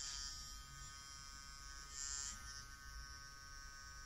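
Hypograph tattoo machine converted to a rotary file, its small motor spinning the burr at speed with a steady high whine; a brief brighter hiss rises about two seconds in.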